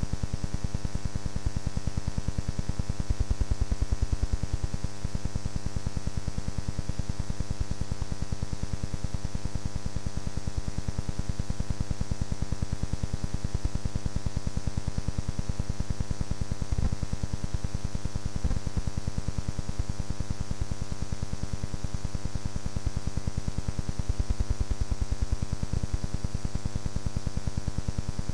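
Steady electrical hum and buzz with hiss, pulsing in a fast, even rhythm, with no other sound over it.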